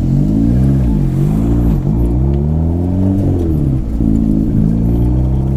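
Turbocharged classic Mini's engine heard from inside the cabin under way, its revs rising and falling about three times as it is driven, then holding steady near the end.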